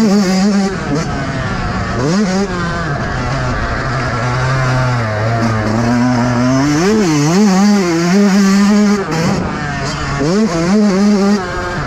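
Yamaha YZ125's 125 cc single-cylinder two-stroke engine under a rider on a motocross track, its pitch climbing and dropping again and again as the throttle opens and closes. It holds a lower, steadier note around the middle, gives a few quick blips about seven seconds in, then climbs and drops twice more.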